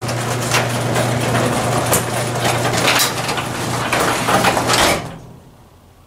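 Automatic garage door opener running as it lowers a sectional garage door: a steady motor hum with the door rattling along its tracks. It starts abruptly and winds down about five seconds in as the door closes.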